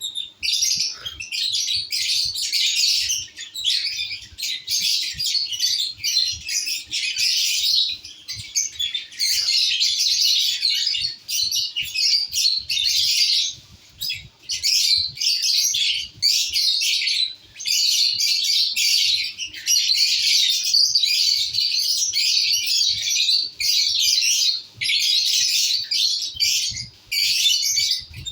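Pet lovebirds chattering: a dense, nearly unbroken stream of shrill high chirps and squawks with only brief pauses.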